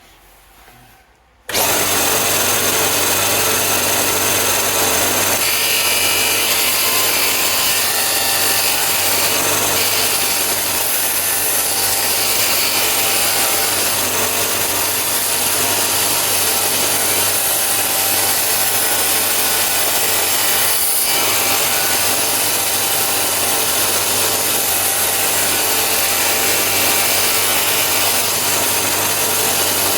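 Bucktool BD4603 direct-drive belt and disc bench sander starting abruptly about a second and a half in, then running steadily with its motor hum under a loud grinding hiss as a piece of 3 mm steel is sanded to a rounded radius on the abrasive disc.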